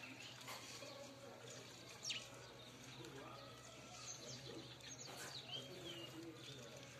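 House sparrows chirping now and then: short, scattered chirps, with sharper calls about two and five seconds in, over a faint steady low hum.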